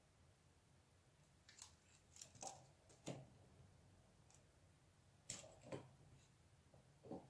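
Near silence broken by a few soft, scattered clicks and light taps, like small objects being handled.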